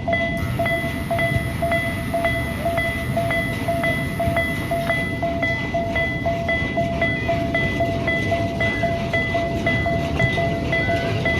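Mini-railway level-crossing alarm ringing its repeated two-tone ding, a little over two strikes a second, over a low rumble.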